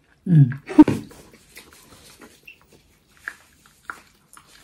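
A short wordless vocal sound in two quick parts near the start, from someone eating. Faint scattered clicks of eating follow.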